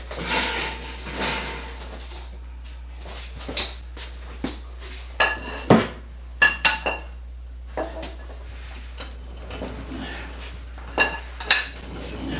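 Steel machine skate being worked out from under a lifted lathe: a scrape at first, then a series of sharp metallic knocks and clinks, several of them ringing on briefly.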